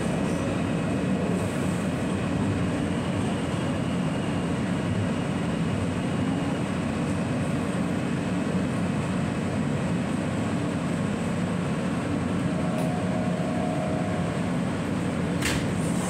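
R160 subway car running, heard from inside the car by the side doors: a steady rumble of wheels and running gear. Just before the end comes one sharp click as the doors begin to slide open.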